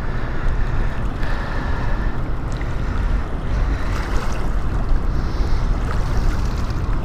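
Steady rush of fast-flowing river water, with wind rumbling on the microphone.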